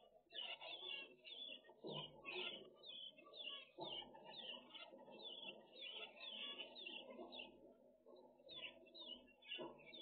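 Zebra finches calling faintly, with short, repeated calls about two a second.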